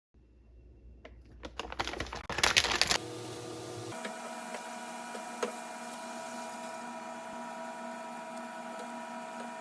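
A run of clicks and a short loud rattle, then a small machine running with a steady, even hum from about three seconds in.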